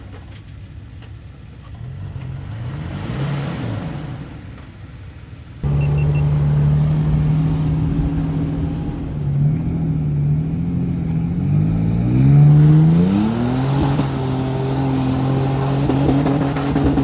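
A Toyota Tacoma's engine revs as it drives through mud, its pitch rising and falling. About five and a half seconds in, a much louder Toyota FJ Cruiser 4.0-litre V6 takes over, running steadily at first, then revving up in a rising climb near the middle as the truck pulls away through the mud.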